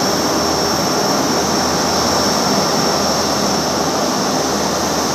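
Airbus A350-900's Rolls-Royce Trent XWB turbofan engines running at taxi power: a steady rushing hum with a high whine held over it.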